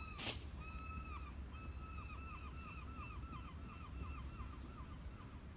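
A bird calling: a series of short, arched notes that come faster and faster, over a steady low rumble of wind. There is a light knock just after the start.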